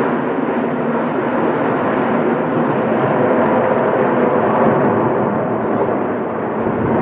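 Jet noise from a formation of six twin-engine F/A-18 Super Hornets passing overhead: a steady, loud rushing sound.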